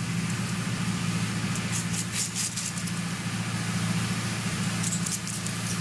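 Engine of a tree-cutting machine running steadily, with short bursts of high crackling twice.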